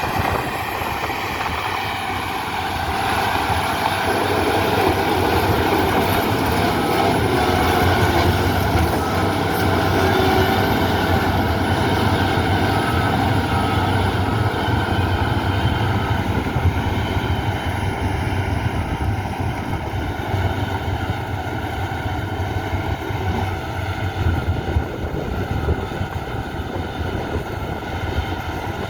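Heavy construction machine's diesel engine running steadily under work, a little louder about four seconds in and easing slightly near the end.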